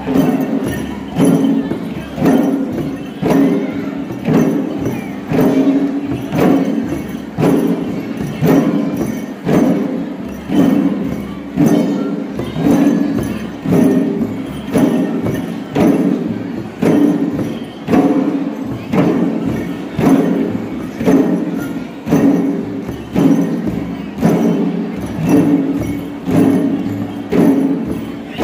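Limbu chyabrung (ke) barrel drums beaten in a steady, even dance rhythm: a strong beat about once a second with lighter strokes between, each stroke ringing on.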